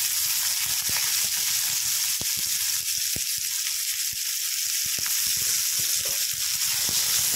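Sliced onions sizzling steadily in hot oil in a metal kadhai, just after the oil was added, with scattered light taps and scrapes as a spatula stirs them.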